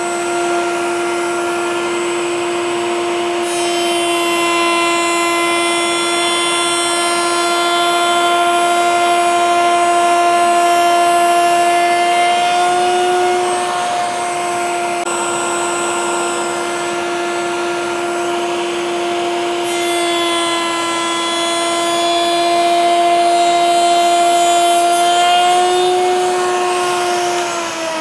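Table-mounted router spinning a Whiteside rail-and-stile bit at a steady high whine while two rails are fed through for the profile cut. A rough cutting hiss rides over the whine from about 3 seconds in to about 13 seconds, and again from about 20 to 27 seconds, and the pitch lifts slightly as each cut ends.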